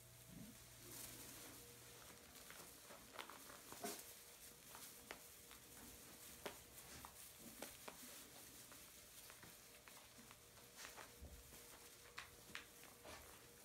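Faint rustling and scuffing of straw as puppies move about on it, with scattered light clicks and scrapes.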